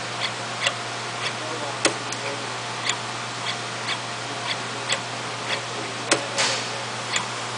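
AIM 100 CNC spring coiling machine forming wire: its servo-driven tooling clicks at a regular pace, roughly one click every half second, over a steady low hum. About six seconds in comes a sharper click followed by a short hiss.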